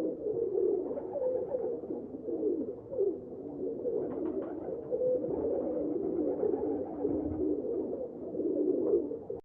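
Pigeons cooing, a low warbling coo that runs on without a break and cuts off abruptly at the end.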